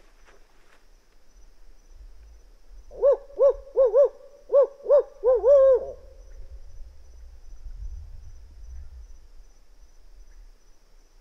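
Barred owl hooting: a loud, quick run of about eight hoots, the last one drawn out, in the rhythm of the 'who cooks for you' call. It is the kind of owl hoot that makes a gobbler shock-gobble at dawn.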